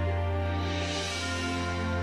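Soft, slow background music with sustained held notes over a steady low tone.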